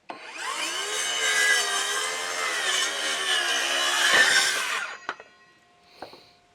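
Power saw cutting through a wooden board at a marked length, its motor note wavering under load. It starts abruptly and stops about five seconds in.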